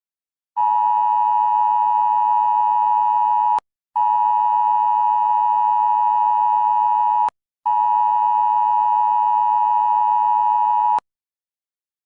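Emergency-alert attention tone: a steady two-note electronic tone just under 1 kHz, sounded three times for about three seconds each with short breaks between, starting about half a second in.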